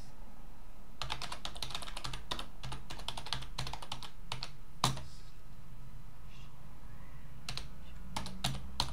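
Typing on a computer keyboard in quick runs of keystrokes, with one louder key strike about five seconds in, a pause of a couple of seconds, then more typing near the end.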